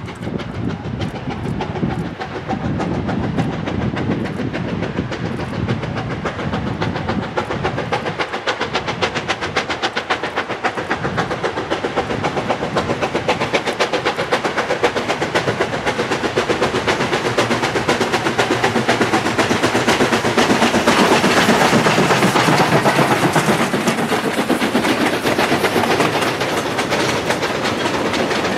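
ALCO 2-8-0 Consolidation steam locomotive pulling a freight train, its exhaust chuffing in a fast, even beat that grows louder as it approaches and passes, about two thirds of the way in. Near the end the freight cars roll by with a clickety-clack of wheels.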